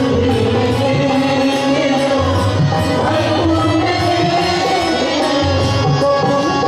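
Devotional bhajan music: a harmonium holds sustained notes over recurring hand-drum beats.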